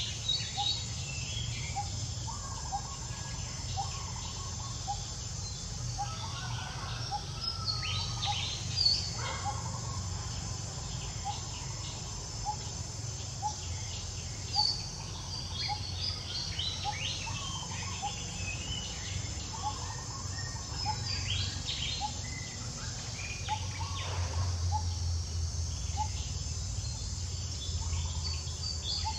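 Outdoor natural ambience: a steady high insect drone with birds chirping over it, including one short call repeated a little more than once a second. Twice a brief, sharper sound stands out.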